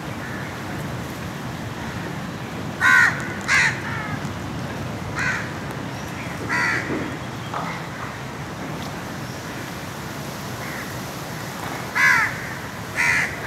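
Crows cawing: about seven short caws in scattered pairs, the loudest about three seconds in and again near the end, over a steady outdoor background hiss.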